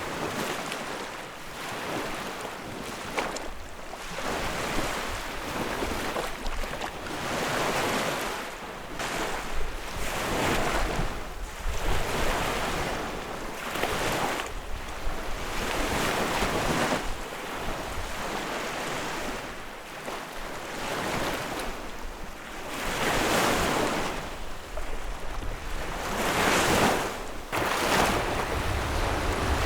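Small lake waves washing onto the shore, each wash swelling and fading every two seconds or so, with some low wind rumble on the microphone near the end.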